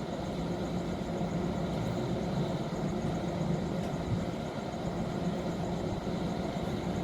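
Steady low drone of running machinery, like an engine idling, holding an even level throughout.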